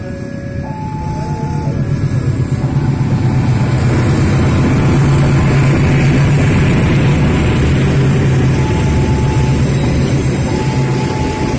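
Diesel locomotive arriving at a level crossing, its engine a steady low drone that grows louder over the first few seconds and then holds loud. A faint high warning tone from the crossing comes and goes behind it.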